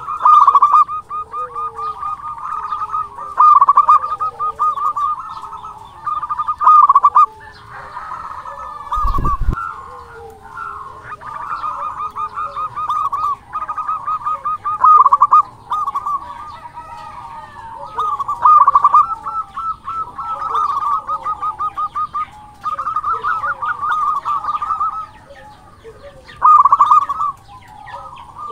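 Zebra dove (perkutut) cooing: bouts of rapid rolling notes repeated every second or few seconds, with softer lower sliding coos between them. A brief low thump about nine seconds in.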